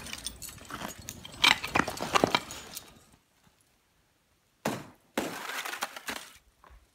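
Footsteps crunching and cracking through crusted snow on a steep path, stopping about three seconds in. After a short quiet there is a sharp knock, then another second or so of crunching.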